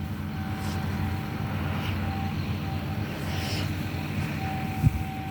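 Farm machinery engine running steadily at an even pitch, with a thin steady whine above it. A single short knock about five seconds in.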